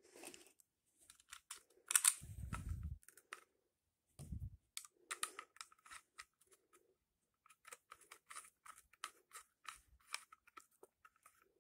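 Small clicks and taps of a rigid holster and the hanger's screws being handled and lined up to be screwed together, with a louder knock and dull bump about two seconds in and another bump about four seconds in.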